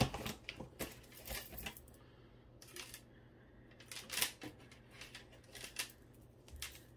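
Costume jewelry (metal bracelets, chains and beads) clicking and clinking as pieces are handled and set down: a sharp click at the very start, then scattered lighter clicks and rattles.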